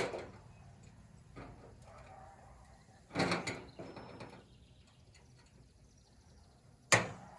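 Knocks and a scraping rattle from an aluminum truck toolbox lid being handled and propped open: a sharp knock at the start, a longer scrape about three seconds in, and another sharp knock near the end.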